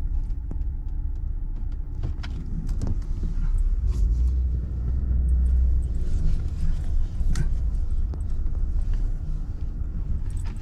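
Inside a slowly moving vehicle's cab: a steady low engine and road rumble that swells a little midway, with scattered light clicks and rattles from the cab.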